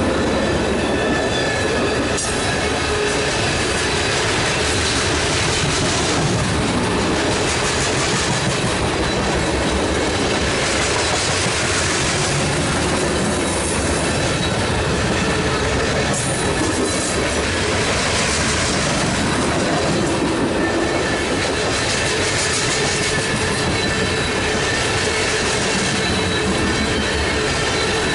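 Coal train's hopper cars rolling past close by: a steady noise of steel wheels running on the rails.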